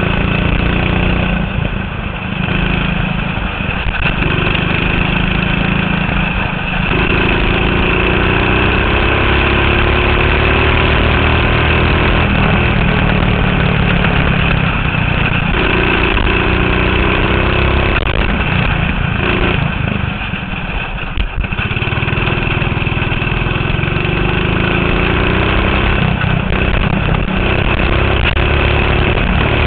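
Go-kart engine running hard on a lap, its pitch rising repeatedly as it accelerates and dropping away each time the throttle is lifted for a corner, most clearly around a quarter of the way in and again about two-thirds of the way through.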